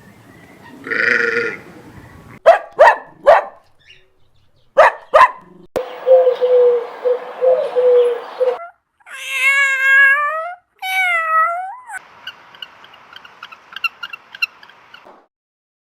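A string of short domestic cat and dog calls: several sharp barks, then drawn-out meows gliding up and down in pitch, each call separated by brief gaps.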